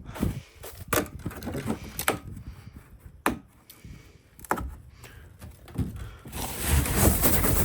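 About five sharp cracks or knocks, roughly a second apart, then gusting wind hitting the microphone from about six seconds in.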